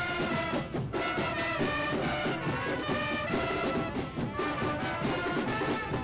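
Football supporters' brass band playing a tune on trumpets and trombones, with snare drums keeping a steady beat.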